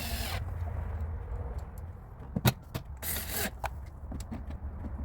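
Clicks and knocks of hand work on the van's taillight assembly as its screws go back in, the sharpest click about two and a half seconds in, with two short scraping bursts, over a steady low rumble.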